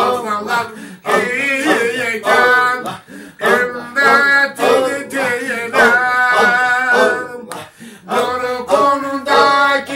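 A man singing unaccompanied in a slow, ornamented style, his voice wavering and sliding between notes in long phrases with short breaks for breath.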